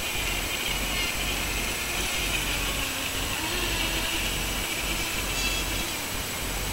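Atomik Barbwire radio-controlled boat running fast on the water, its motor giving a high whine that swells and shifts in pitch as the boat passes and turns, with a hiss of spray.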